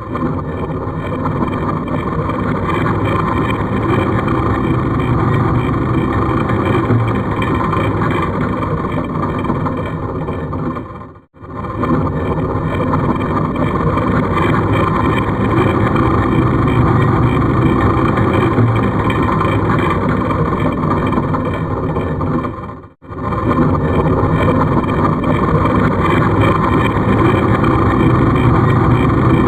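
Horror-style creepy mechanism sound effect: heavy stone scraping and grinding, like ancient rock doors moving, a dense continuous grind. It cuts out for a moment about every eleven seconds as the effect starts over.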